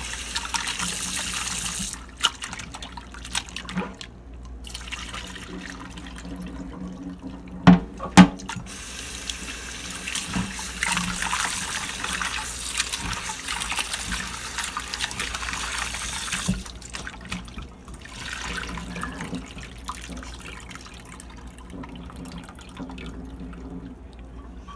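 Kitchen tap running into a plastic colander in a stainless steel sink as conch meat is rinsed and rubbed by hand, the rush of water growing louder and quieter. Two sharp knocks about eight seconds in.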